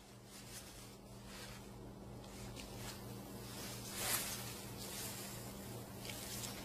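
Soft swishes of embroidery thread being pulled through cloth, with fabric rustling. There are several short strokes, the loudest about four seconds in, over a faint steady hum.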